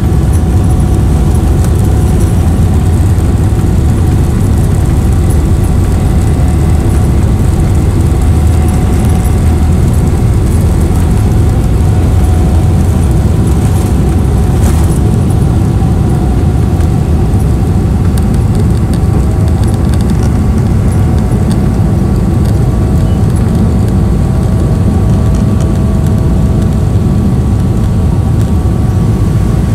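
Cabin noise of a Boeing 777-300ER taking off, heard from a window seat: its GE90 engines at takeoff thrust give a loud, steady rumble with a steady whine on top as the aircraft rolls down the runway, lifts off and climbs. A single brief knock comes about halfway through.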